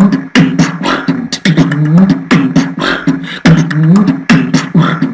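Beatboxing by one person: sharp mouth clicks and snares layered over a hummed bass line that slides in pitch. The whole loop repeats about once a second, with seven sounds from the same mouth layered at once.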